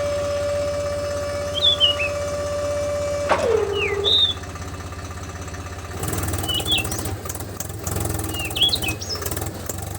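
A DIY mini tractor's small motor whining steadily, then sliding down in pitch and stopping about three and a half seconds in. From about six seconds a lower, fast-pulsing motor sound starts. Birds chirp throughout.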